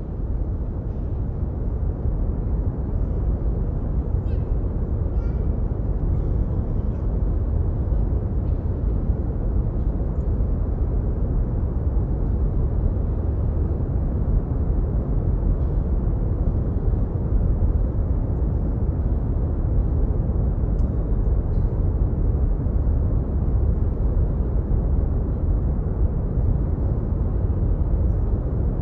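Brown noise played as the dance's soundtrack: a steady, deep rumbling hiss, heaviest in the bass and thinning toward the treble, with a few faint ticks above it.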